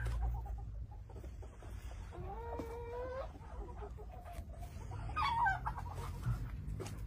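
Chicken calling twice: a drawn-out call about two seconds in, then a shorter call falling in pitch a little after five seconds. A low steady rumble runs underneath.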